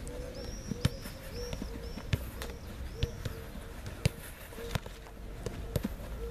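Footballs being kicked and passed on artificial turf: a sharp thud roughly once a second, six or seven in all.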